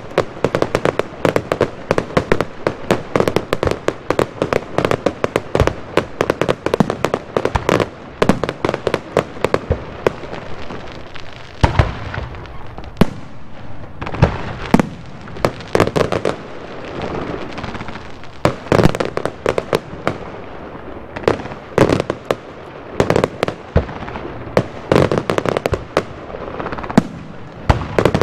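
Fireworks display going off: a dense run of rapid bangs and crackles. After about eleven seconds it thins into separate, louder booms with crackling between them.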